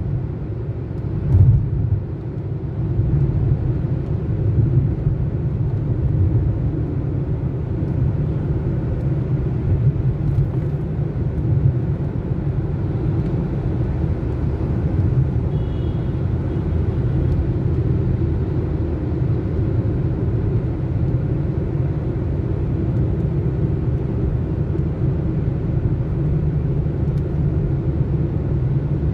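Steady low rumble of road and engine noise heard inside a moving car's cabin at expressway speed. A brief thump about a second and a half in.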